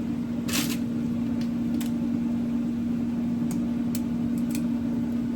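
A kitchen appliance motor hums steadily at one low pitch. A few light clicks and taps sound over it, the clearest about half a second in.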